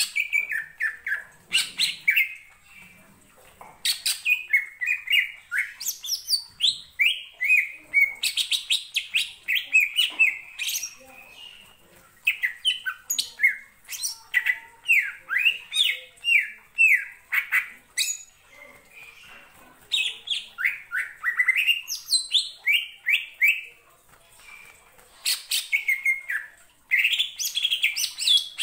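A male cucak ijo leafbird sings vigorously in loud, fast runs of sharp, down-slurred whistled notes. The runs are broken by short pauses.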